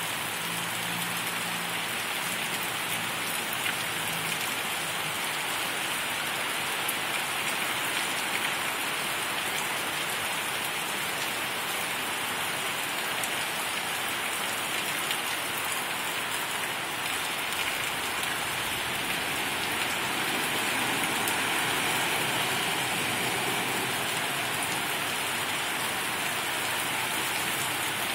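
Heavy rain pouring steadily onto pavement and trees, a constant hiss that swells slightly a little past the middle.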